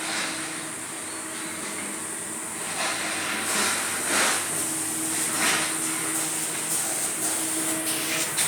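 Compressed-air spray gun hissing in several louder bursts over a steady high hiss, with a low machine hum underneath, as a coating is sprayed onto the steel.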